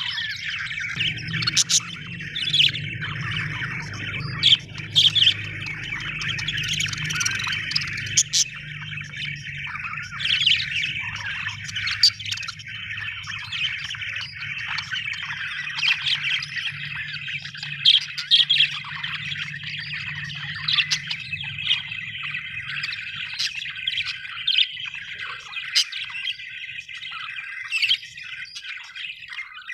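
Budgerigars chattering and warbling without pause, with frequent sharp chirps.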